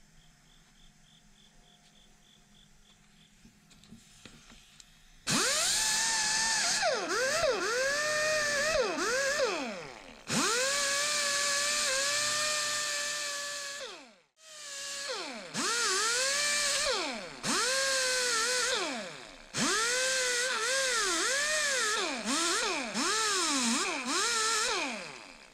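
Small die grinder with a wire cup brush wire-brushing steel ratchet parts. It runs in several long stretches starting about five seconds in, its whine dipping in pitch and recovering each time the brush is pressed against the part.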